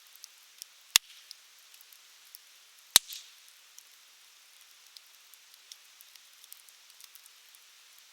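A wood campfire crackling: faint scattered ticks over a soft hiss, and two sharp, loud pops about two seconds apart, the first about a second in.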